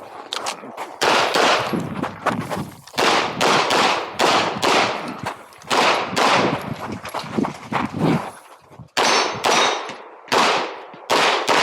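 9mm pistol shots fired in rapid strings during an IPSC stage, two to three a second, each with a ringing echo. There is a brief pause about eight seconds in before the shots resume.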